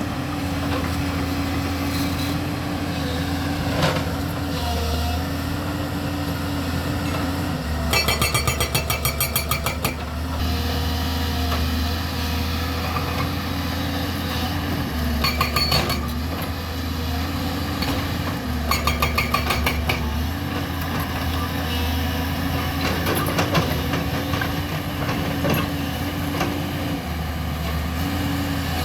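JCB 215 excavator's diesel engine running steadily while its hydraulic rock breaker hammers in three short spells of rapid strikes, each lasting one to two seconds, breaking rock.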